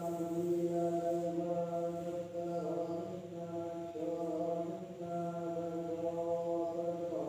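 A single voice chanting one long phrase of held notes that step in pitch, with a short breath-like pause before the next phrase.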